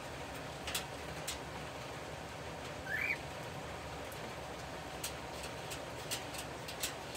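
Steady hiss of light rain falling, with scattered sharp ticks of drops striking nearby surfaces. A single short rising bird chirp about three seconds in.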